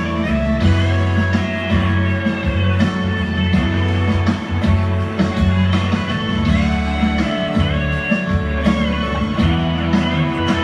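Instrumental break in a country rock song: guitars and bass playing with a steady beat, no vocals.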